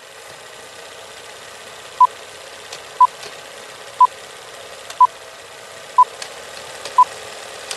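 Old-film countdown leader sound effect: a steady film-projector rattle and crackle with a short high beep once a second, six beeps in all, one for each number counting down. It cuts off suddenly near the end.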